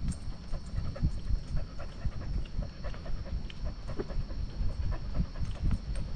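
A husky panting close to the microphone as it moves along, over irregular low thumps of its movement jostling the camera it wears.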